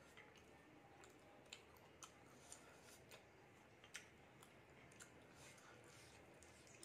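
Faint eating sounds of mutton biryani being eaten by hand: about a dozen soft, scattered clicks of chewing and mouth sounds, spaced irregularly about half a second to a second apart, over low room hiss.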